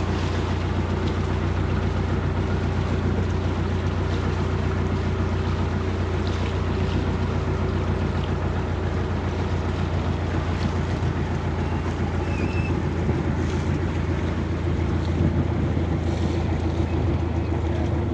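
An engine on a boat running at a steady speed: an even low hum that does not change.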